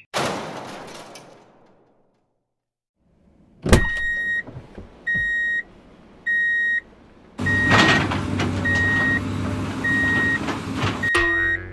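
Added sound effects for toy heavy equipment: a noisy crash that fades over about two seconds, then after a short silence a click and a backup beeper sounding seven times, about once every 1.2 seconds. About halfway through, an engine starts running under the beeps.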